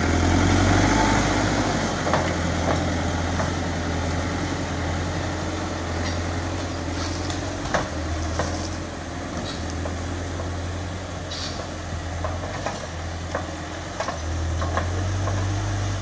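Caterpillar 420F backhoe loader's diesel engine running steadily as the machine drives over cleared ground, its drone swelling a little near the end. Scattered sharp cracks and clicks sound over it.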